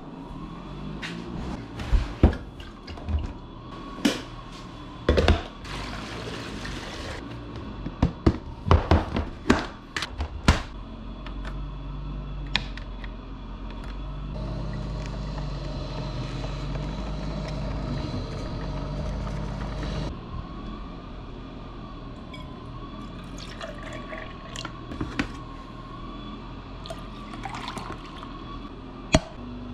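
Coffee being made over a steady low hum: a run of clicks and knocks from handling the mug and coffee maker in the first ten seconds or so, a few seconds of running liquid in the middle, and coffee poured from a glass carafe into a tumbler near the end.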